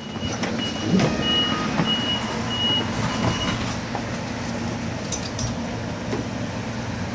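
New Jersey Light Rail train standing at the platform with a steady low hum, while a string of short, high-pitched beeps sounds and stops about three and a half seconds in.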